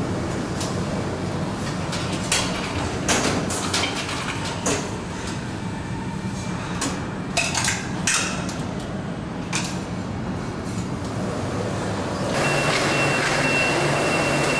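Automated cheese-turning robot working among the storage shelves: a steady machine noise with repeated metallic clanks and knocks as it grips and shifts the wheels of cheese. Near the end an electric forklift's louder running noise takes over, with a steady high whine.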